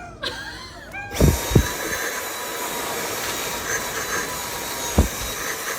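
Vacuum cleaner motor running with a steady whining hiss that starts about a second in, with a few low thumps (two close together near the start, one near the end).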